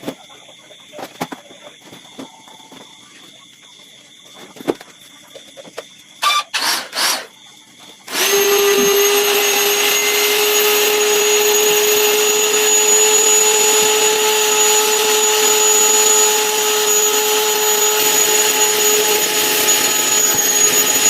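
An electric air pump starts suddenly about eight seconds in and runs at a steady, loud whine with a constant hum, blowing air into an inflatable rubber boat. Before it starts there are light clicks and a few handling knocks.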